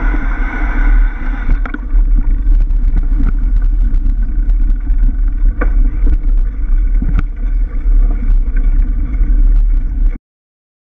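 Wind buffeting the microphone of an action camera on a moving mountain bike, a heavy low rumble, with scattered clicks and rattles from the bike running over a rough gravel forest track. The sound cuts off abruptly about ten seconds in.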